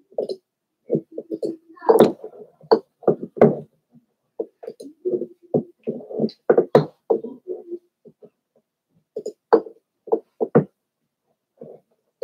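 An indistinct person's voice in short, choppy bursts with gaps, too muffled to make out words.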